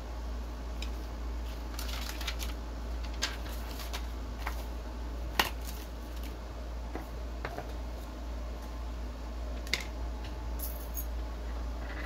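Scattered light clicks and taps of small items and cardboard packaging being handled on a desk, the sharpest about five seconds in, over a steady low hum.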